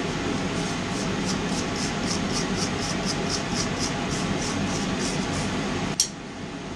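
Wire wheel spinning and brushing forge scale off forged mild steel brackets: a steady whirr with a rhythmic rasping hiss a few times a second. It cuts off abruptly near the end.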